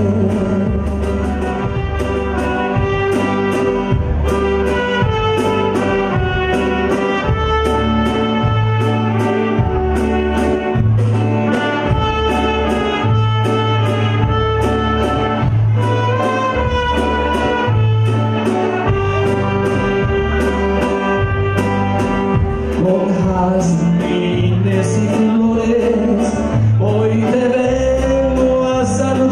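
Live band playing, with saxophones carrying the melody over guitars, keyboard and a drum kit. A steady drum beat and a walking bass line run underneath.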